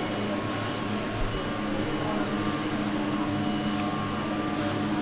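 Steady mechanical hum, with a few low steady tones over an even rushing noise that does not change.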